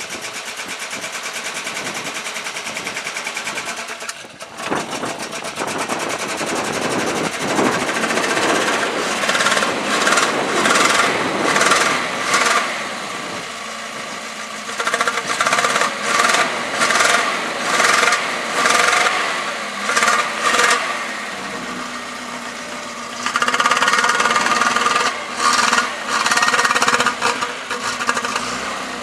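Volvo 122's B18 four-cylinder engine with twin SU HIF6 carburettors running just after a cold start, then revved in a long string of short blips about once a second and held up again near the end. The owner says the SU carbs have the wrong needles, which is why it doesn't run great.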